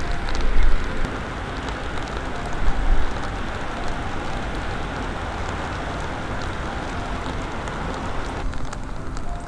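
Steady rain falling, an even hiss, with a couple of louder low rumbles in the first three seconds.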